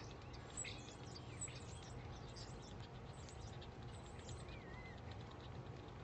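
A flock of birds chirping as they settle into their nightly roost: a dense run of short, high chirps for the first couple of seconds, thinning to scattered calls, with one wavering warbled note about two-thirds of the way through. Under it is a faint, steady low background rumble.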